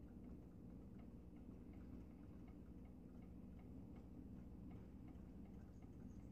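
Near silence: low room hum with faint, regular ticking, about three ticks a second.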